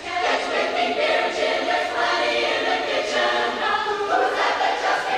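A group of voices singing a cappella in close barbershop harmony, holding chords that shift together.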